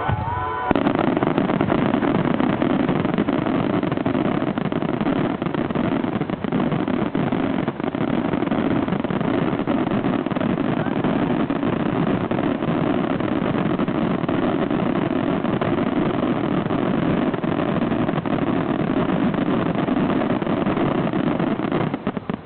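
Fireworks finale star mine: a rapid-fire barrage of aerial shells whose bangs and crackles merge into one continuous rumble, dying down right at the end.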